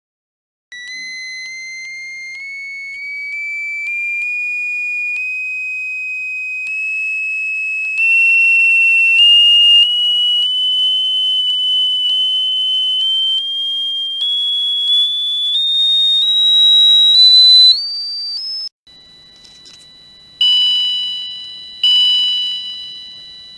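Electronic chime-tone circuit built around a 74HCU04 inverter chip, sounding a steady whistle-like tone with overtones that steps upward in pitch as its frequency is adjusted. After a cut, the same circuit strikes two chime notes about a second and a half apart, each starting sharply and dying away along the circuit's capacitor discharge curve, over a faint steady tone and a low hum.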